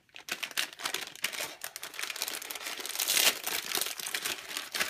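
Crinkling plastic of a Hot Wheels Mystery Models blind bag being handled and torn open by hand: a steady crackle of many small clicks, loudest about three seconds in.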